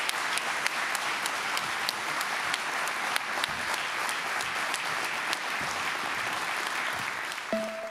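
Audience applauding steadily, a dense patter of many hands clapping. Music begins with a couple of held tones near the end.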